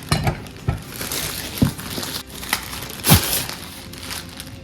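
Packaging crinkling as cookware pieces are unpacked and handled, with several sharp knocks of the pieces being set down or fitted together.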